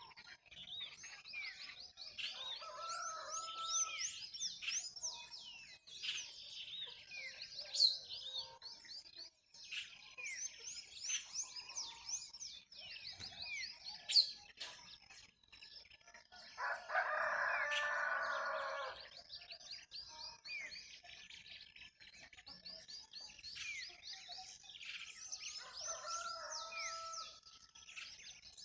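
Dawn chorus of many small birds chirping and twittering together in a tree, a dense continuous tangle of short calls. About two-thirds of the way through, a rooster crows once, a drawn-out call of about two and a half seconds.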